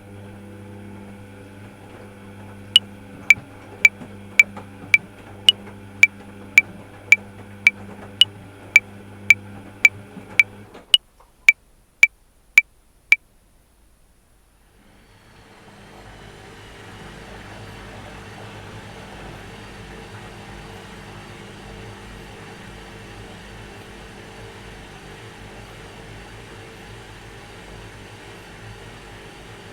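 A metronome clicking at 110 beats per minute in 5/4, about two clicks a second with an accent on every fifth, for four bars, over the steady hum of a washing machine. The hum and clicks stop, and after a few seconds of near silence the washing machine starts a steady whirring run.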